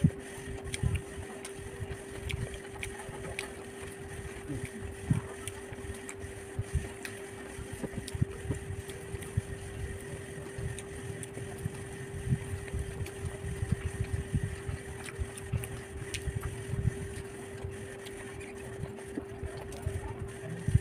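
A person eating close to the microphone: irregular soft chewing and mouth sounds with occasional small clicks, over a steady hum.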